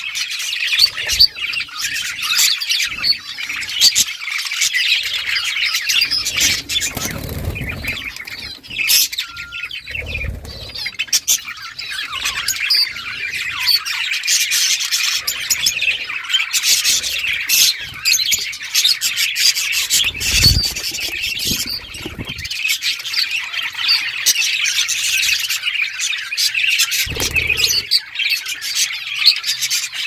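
A group of budgerigars chirping, chattering and squawking without pause, many calls overlapping. A few brief low rumbles come in under the calls.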